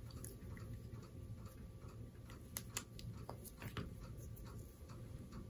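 Faint, irregular small clicks and light handling noise from hands working fly-tying materials at the vise, over a low steady hum.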